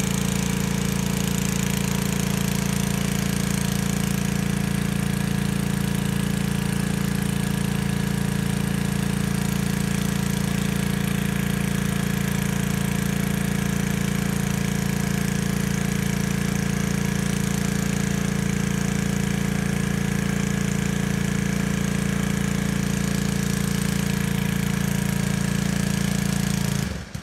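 Pressure washer running with a steady, loud engine drone that cuts off abruptly near the end.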